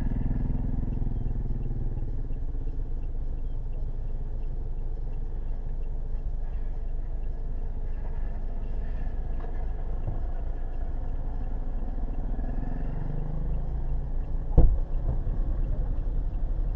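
Vehicle engine idling, a steady low rumble heard from inside the cabin. A single sharp knock sounds a couple of seconds before the end.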